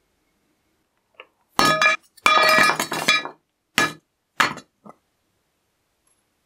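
Charcoal briquettes dropped one by one into a small stainless steel bowl, each landing with a clink that sets the thin metal bowl ringing briefly. About five drops come over some three seconds, starting about a second and a half in, the longest a clattering rattle around the two-second mark.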